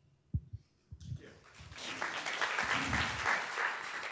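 Audience applauding: the clapping starts about a second in after a brief near-silence with a couple of low thumps, and builds to a steady level.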